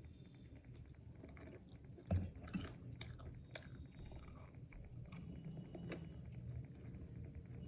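Close-up chewing and biting of food, with a handful of sharp crunchy clicks, the loudest about two seconds in.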